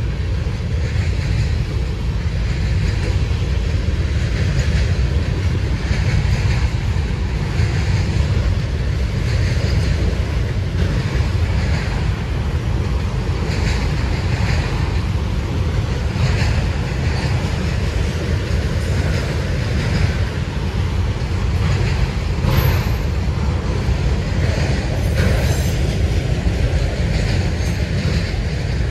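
Norfolk Southern freight train cars rolling past: a heavy steady rumble with a clatter of wheels over the rail joints that comes back every second or two.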